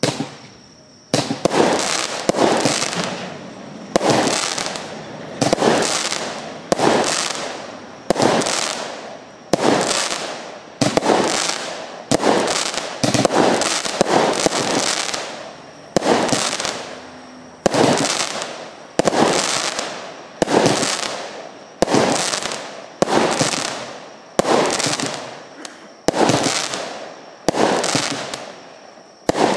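A 180-shot compound fireworks cake firing shot after shot at a steady pace of a little over one a second. Each shot is a sharp bang that fades away over most of a second.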